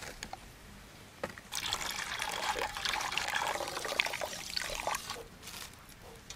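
A stream of water poured into a metal pot of blue jelly mixture, splashing as it fills, starting about a second and a half in and stopping shortly before the end.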